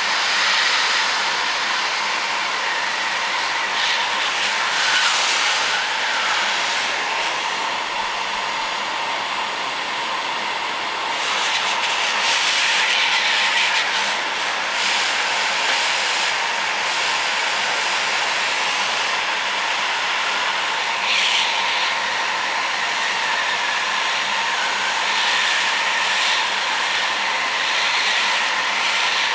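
Heat gun blowing hot air: a steady, rushing hiss of its fan and airflow, swelling a little now and then.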